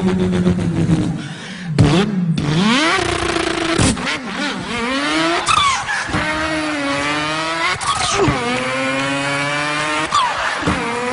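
A man imitating a car engine with his voice. It begins on a steady tone, then climbs in pitch in about four runs, each cut off by a sudden drop, like a car revving up through its gears.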